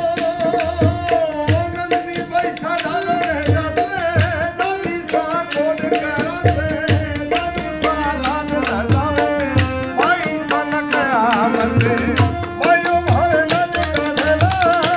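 Rajasthani Langa folk song: a man sings a wavering melody over a held harmonium accompaniment, with regular low dholak drum strokes and fast clicking hand percussion.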